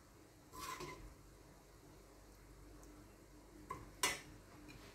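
Quiet kitchen clatter of utensils against a metal cooking pot: a short rattle about half a second in, then a small click and a sharper clank about four seconds in.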